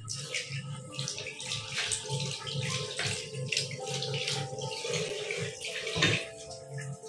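Water running from a bathroom sink tap, splashing over a hand and into the basin.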